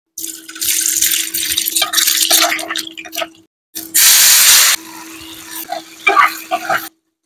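Hot oil sizzling in a nonstick frying pan as peeled quail eggs fry. About four seconds in, chopped tomatoes dropped into the oil set off a much louder burst of sizzling, then the frying goes on more quietly with a ladle stirring and knocking in the pan near the end. A steady hum runs underneath.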